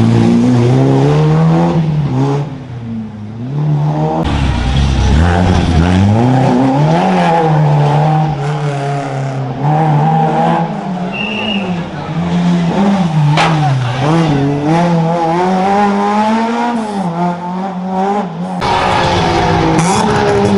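Historic rally car engine at full effort on a stage, revs climbing and dropping again and again through gear changes and lifts, with a brief drop in loudness about three seconds in.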